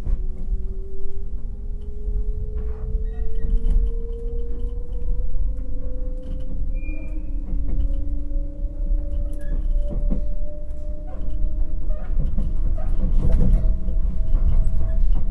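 Inside the motor car of a JR 189 series electric train picking up speed: the whine of its MT54 DC traction motors and gearing climbs slowly in pitch over a steady low rumble from the running gear. A few short knocks come through, about two-thirds of the way in.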